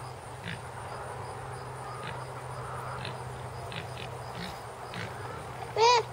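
A flock of laying hens foraging in pasture grass: scattered short high chirps over a faint steady hum, then one loud, pitched hen call with a rise-and-fall shape near the end.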